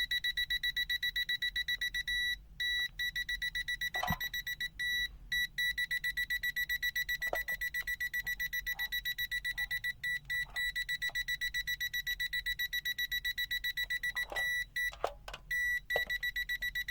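Prokit MT-1280D multimeter's non-contact voltage detector beeping: a rapid, even run of high-pitched beeps, several a second, with a few brief breaks and faint handling clicks. The beeping is the alarm for detected live voltage on the cable at the strongest, 3-bar level.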